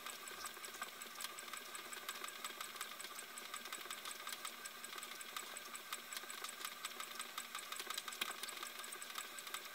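Home exercise bike running steadily as it is pedalled, a faint mechanical whir with light, rapid ticking.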